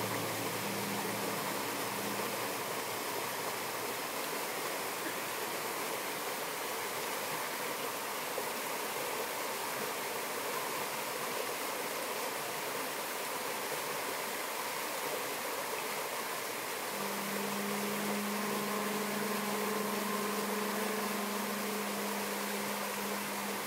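Stream rushing over rocks, a steady wash of water. A low saxophone note sounds briefly near the start, and about two-thirds of the way in a low saxophone note is held steadily to the end.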